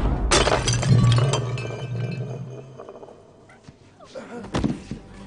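Film sound effects: a sharp metallic crack just after the start, followed by a clinking, chime-like ringing that fades over about two and a half seconds above a low hum, then a duller thud near the end.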